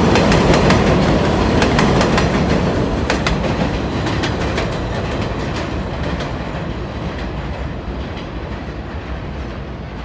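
New York City subway train passing, its wheels clicking sharply over rail joints, then the running noise fading steadily as the train moves away.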